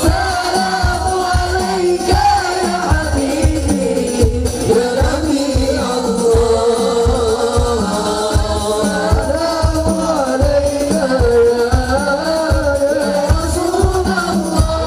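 Sholawat, Islamic devotional praise song: a man singing a melodic line into a microphone over a steady frame-drum beat.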